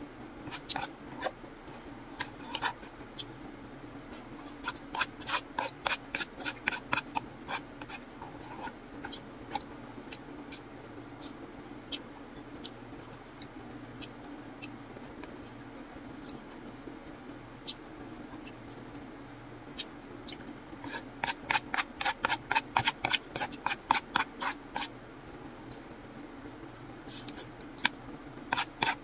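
Close-miked chewing and mouth sounds of someone eating noodles: runs of quick wet clicks and smacks, about four or five a second, over a steady low hum.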